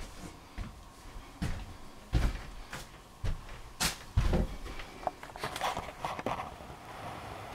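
Camera handling noise: about five irregular knocks and thumps in the first half, then lighter clicks.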